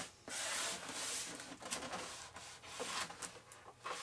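Handling noise from a foam RC model airplane being moved on a workbench: a rubbing, scraping sound for about two seconds, then scattered light knocks and clicks.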